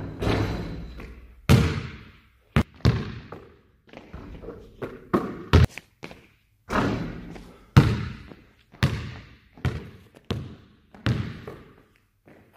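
A basketball bouncing on a gym floor and banging off the backboard and rim, about a dozen irregular thuds, each ringing on in the echo of a large hall.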